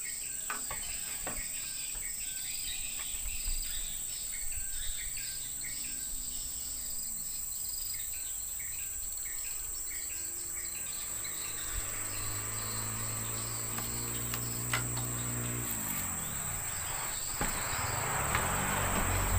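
Steady high-pitched drone of insects in riverside forest, with repeated short chirps over it in the first half. A low hum comes in about halfway and drops in pitch and fades a few seconds later, and a hiss builds near the end.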